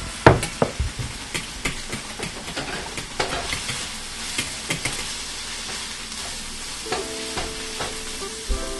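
Chopped onions sizzling in a frying pan as they are stirred with a spatula, along with the tapping and clinking of a whisk beating eggs and sour cream in a glass bowl. There is a sharp knock just after the start.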